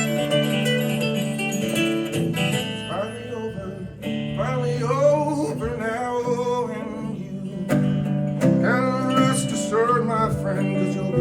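Bluegrass band playing: acoustic guitar strumming chords under a lead melody line that bends and slides in pitch.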